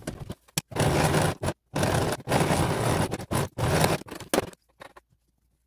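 Electric sewing machine stitching through stiff felt in several short runs, starting and stopping, the last one ending about four and a half seconds in.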